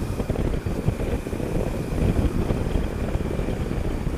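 Honda Africa Twin CRF1000L's parallel-twin engine running while riding, mixed with a dense, unsteady low rumble of wind buffeting the helmet-mounted microphone.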